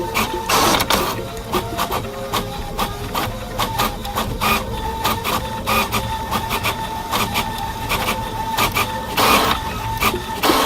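Experimental noise piece built from non-instrument sounds: a dense, irregular clatter of mechanical clicks over a steady hum tone, with a short hissing swell about a second in and another near the end.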